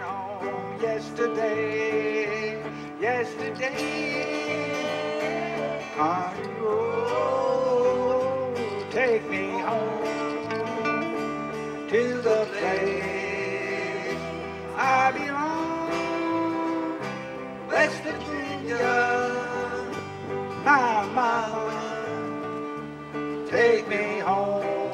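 A small band playing live: acoustic guitars strumming with an electric guitar and a singing voice.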